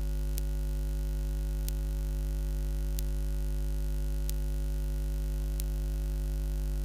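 Steady electrical mains hum, a low 50 Hz buzz with higher overtones, in the sermon's sound system or recording, with a faint sharp click about every 1.3 seconds, five times.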